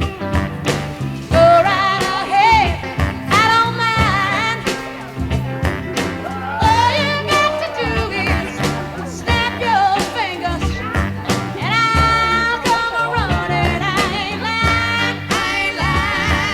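A song with a singing voice over a band with a steady beat and bass.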